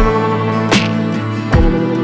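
Instrumental background music with a steady beat, about one stroke every 0.8 seconds.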